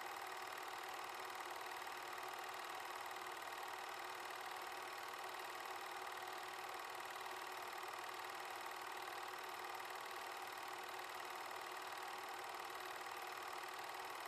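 Super 8 film projector running: a steady mechanical whir with a fast, even clatter of the film transport.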